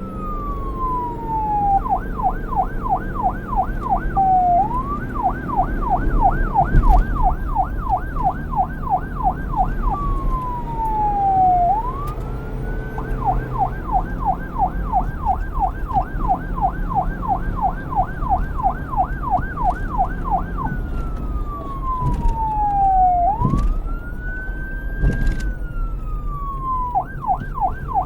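Police car siren switching back and forth between a slow wail, falling and rising over a few seconds, and a fast yelp of about three to four sweeps a second, over a steady low rumble.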